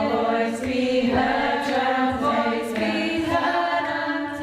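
A community choir of women singing together unaccompanied, several voices holding long notes that change about once a second.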